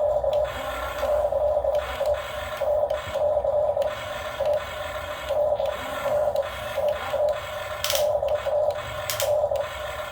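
Small electric motors of a radio-controlled model excavator whining in short bursts, starting and stopping about once or twice a second as the model is driven, with a few faint clicks near the end.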